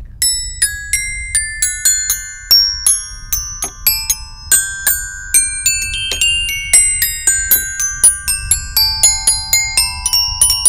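Children's metal-bar xylophone (a toy glockenspiel) struck with two mallets, a run of quick single ringing notes, about three a second, wandering up and down the scale.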